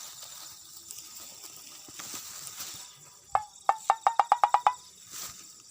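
Night insects, crickets, chirring steadily. About halfway through comes a quick run of about a dozen short, pitched knocking calls, lasting about a second and a half.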